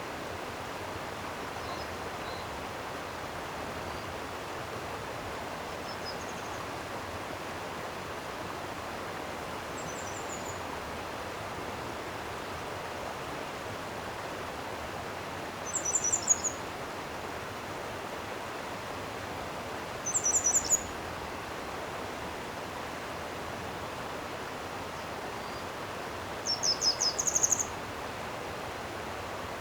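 Flowing stream water rushing steadily. A small bird calls over it three times in short, quick, high-pitched phrases, about halfway through, a few seconds later and near the end, with a few fainter chirps earlier.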